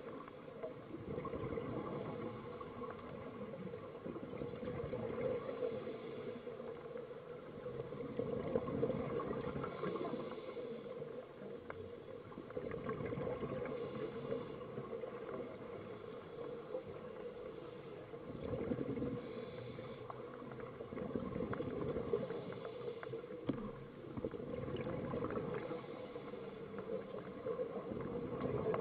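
Muffled underwater sound picked up through a camera housing at a scuba dive: a steady hum with gurgling exhaust bubbles and small ticks, swelling in loudness every few seconds.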